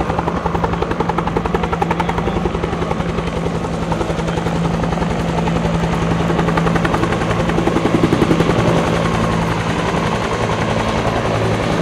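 Bell UH-1 Huey helicopter flying low: its rotor beats in a fast, steady rhythm over a constant engine hum. It grows louder to a peak about 8 seconds in, then eases slightly.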